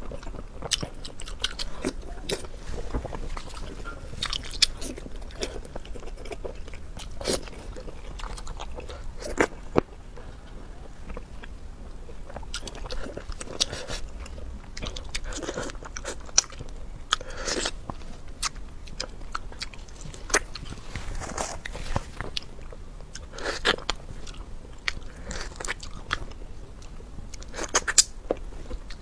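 Close-miked eating: a person biting and chewing food, with crisp crunches and wet mouth sounds coming irregularly throughout and a few louder bites.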